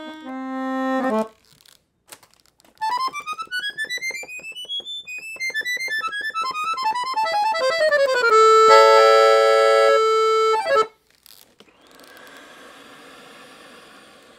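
La Melodiosa Model 70 piano accordion, four-voice LMMH treble reeds in a double tone chamber, played: a short chord, then a fast run of notes climbing up the keyboard and back down, ending in a loud held chord that cuts off sharply about eleven seconds in. After it comes a soft rush of air from the bellows.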